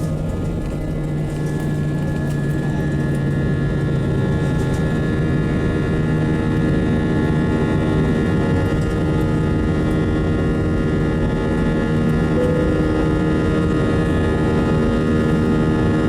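Airbus A320 jet engine and airflow drone heard from inside the cabin: a steady rushing noise with several steady tones running through it, growing slightly louder over the first few seconds.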